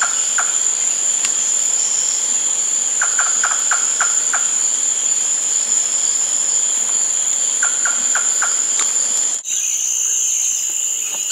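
Continuous high-pitched drone of an insect chorus, with three short trains of quick notes from another animal cutting in. About nine seconds in the drone drops slightly in pitch.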